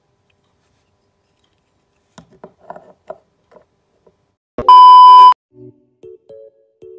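Faint scattered clicks as a Beyblade spinning top is handled, then a loud steady electronic beep about two-thirds of a second long. Short notes of background music follow near the end.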